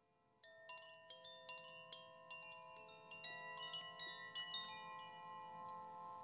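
Faint tinkling chimes: many bell-like notes struck one after another, each ringing on so that they overlap, starting about half a second in.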